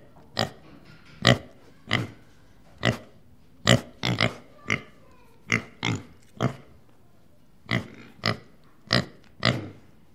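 A pig grunting over and over in short, sharp grunts, one or two a second with uneven gaps.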